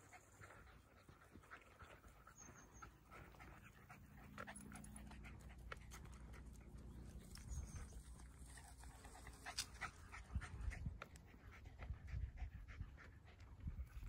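Jack Russell terrier panting faintly while out walking, with scattered light ticks and soft low thumps that grow stronger from about halfway through.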